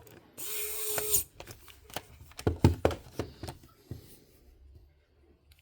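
Small parts of a Sony MZ-R3 MiniDisc recorder clicking and knocking as it is reassembled by hand. A short hissing whir with a steady tone comes just before the first second.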